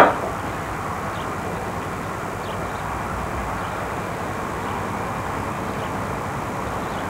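Steady outdoor background noise, a flat hiss and rumble, opening with a sharp pop and carrying faint short high chirps every second or so.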